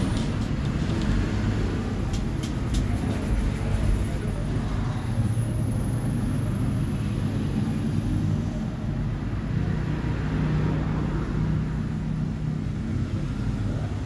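Steady low background rumble, with a few faint clicks in the first three seconds.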